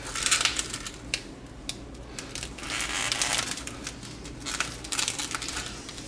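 Plastic film on a foam tray of ground beef crinkling and rustling as the package is handled and moved, in short bursts with a few sharp clicks.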